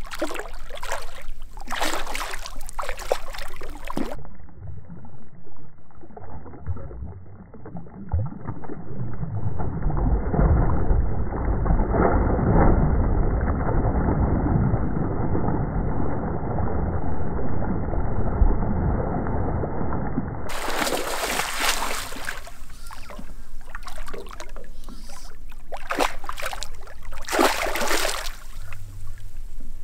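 A hooked fish thrashing and splashing at the water's surface on the line, in irregular bursts, with water sloshing. For a long middle stretch the sound turns dull, its high end cut off.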